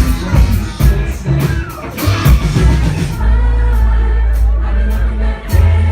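Live band playing with a steady drum beat and a sung vocal line, and a sustained bass note coming in about three seconds in.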